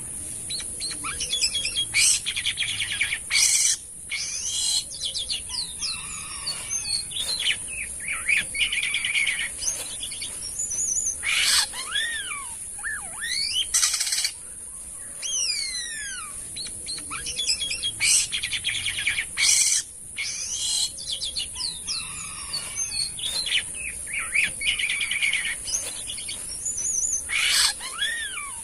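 Jalak kapas starling singing loudly and continuously: a busy chatter of whistled notes that sweep up and down, rapid trills, and sharp harsh calls, with the same sequence of phrases coming round again about every sixteen seconds. A steady high-pitched hiss runs underneath.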